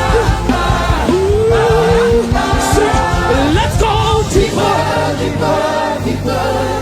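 Gospel worship music: a singer's voice sliding between held notes over band accompaniment with steady bass notes.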